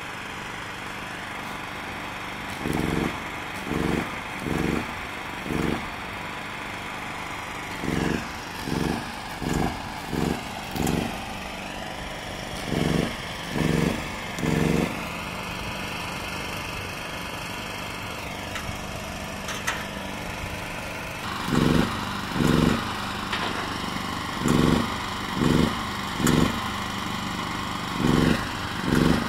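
Portable petrol generator engine running steadily. Over it come runs of four to six short, low thuds, each under half a second and repeating about once a second, in several groups.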